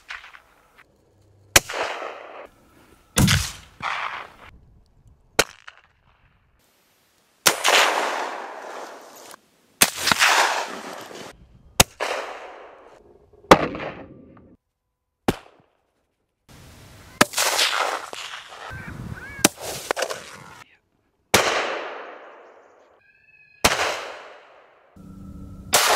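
A rapid series of about a dozen hunting-rifle shots, each a sharp crack followed by a long rolling echo across open country. Some echoes are cut off abruptly by the next shot.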